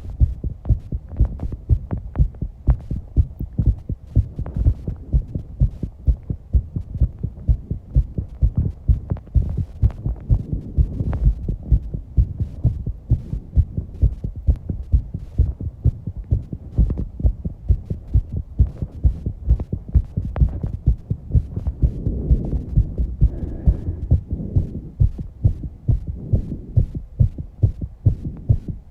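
A fast human heartbeat, picked up close to the chest, beating steadily at about two beats a second after exercise. Fainter breathing sounds swell in places, most clearly about three quarters of the way through.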